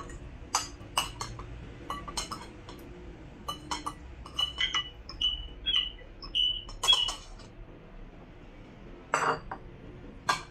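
Metal fork and spoon clicking and scraping against ceramic bowls while eating, with a run of short ringing clinks in the middle. About nine seconds in, a louder clatter as the bowls are gathered and stacked.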